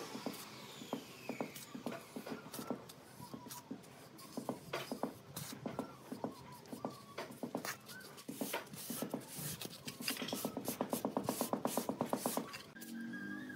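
Steel trowel scraping and tapping wet cement render onto the wall of a brick stove: irregular scrapes and light taps, then a quick run of about ten taps a second near the end. A low steady hum starts just before the end.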